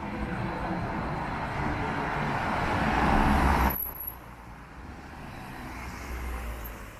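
A motor vehicle passing close, its noise growing louder for about three and a half seconds, then cut off abruptly, leaving quieter street traffic noise.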